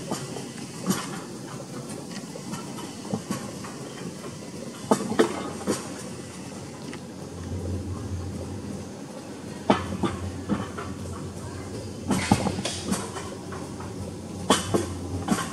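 Alpine coaster sled running along its steel-tube track: a steady rumble with sharp clacks and knocks every second or two, and a steady low hum from about halfway through.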